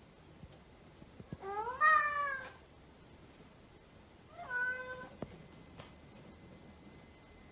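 A domestic cat meowing twice: a longer call that rises in pitch about a second and a half in, then a shorter meow a few seconds later.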